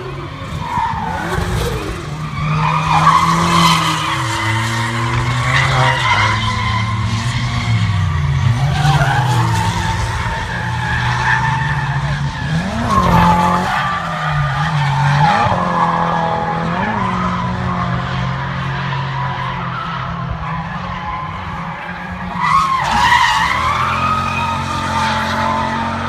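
Drift cars sliding sideways on track, engines revving up and falling away over and over while the tyres skid and screech. A louder surge of revs comes near the end.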